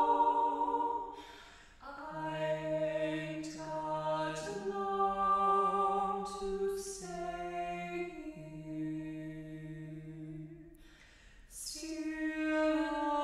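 Unaccompanied vocal trio of soprano, alto and baritone singing a slow spiritual in three-part harmony, with long held notes and the baritone sustaining a low line. The singing breaks off briefly about two seconds in, and again just before the end, where a new phrase begins.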